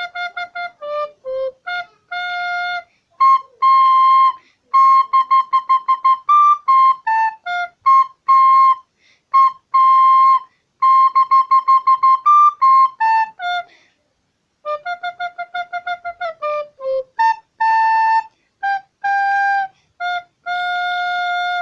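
A recorder playing a simple melody solo, with many quick repeated tongued notes. It pauses for about a second two-thirds of the way through, then resumes.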